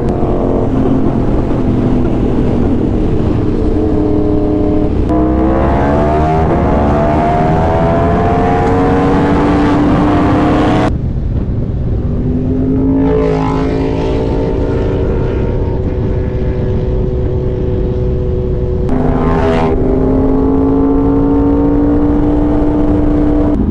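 Yamaha R1 sportbike with an SC Project exhaust, heard on board while riding at speed over a steady wind rumble. The engine pitch climbs steadily as it accelerates, then eases off, and the sound changes abruptly twice.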